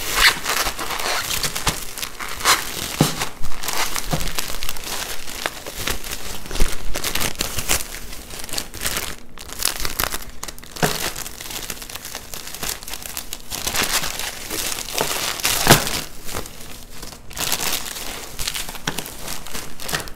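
Bubble wrap and plastic bags crinkling and rustling as hands unwrap packaging, in irregular crackles with a few louder crunches.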